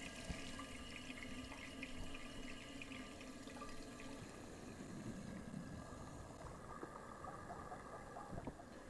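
American-Standard toilet tank refilling after a flush: a faint, steady hiss of water running in through the fill valve. It is taking forever to fill, which the plumber takes for the flapper probably leaking by.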